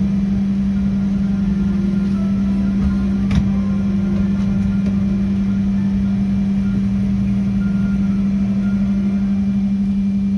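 Steady engine drone with a constant low hum, unchanging throughout.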